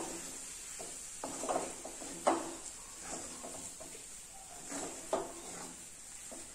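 Wooden spatula stirring and scraping a thick gram-flour and coriander dough in an aluminium kadhai, with a few sharper scrapes and knocks against the pan a second or more apart.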